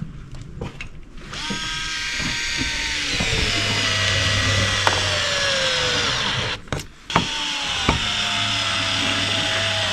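Cordless screwdriver driving screws that fasten a round electrical box to wood siding. The motor whine slowly drops in pitch as each screw pulls in, stops briefly about seven seconds in, then runs again.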